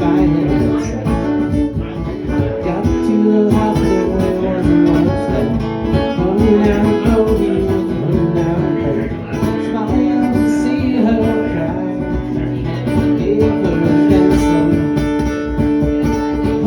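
Acoustic string band music led by strummed and picked acoustic guitar, playing an instrumental break between verses of a bluegrass-style song.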